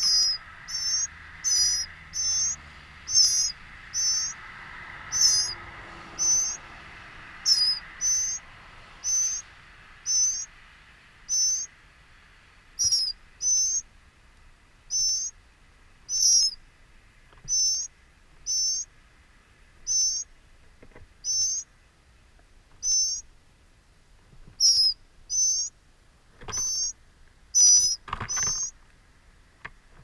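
A small songbird at the nest repeating a short, high, wavering call about once a second. A faint steady insect-like drone sits underneath and fades out after about ten seconds, and there are two brief rustles near the end.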